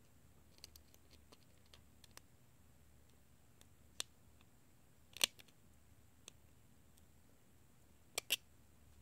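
Scattered light metallic clicks of a small screwdriver working a screw in an iPhone 6's logic board and frame. There is one sharper click about five seconds in and two close together near the end.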